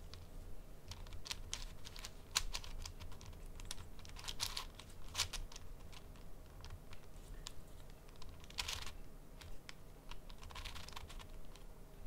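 Plastic 5x5 speedcube being turned slowly by hand: scattered clicks of the layers snapping into place, with a few longer scraping turns of the slices.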